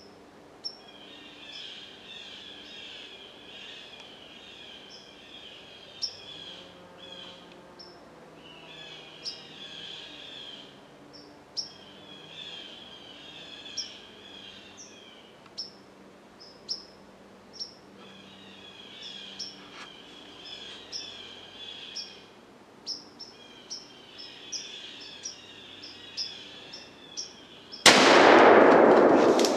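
Small birds chirping and singing, short chirps and a recurring trilled song every few seconds. Near the end, a sudden very loud noise that fades slowly: the shot taken at a black bear feeding at a bait pile.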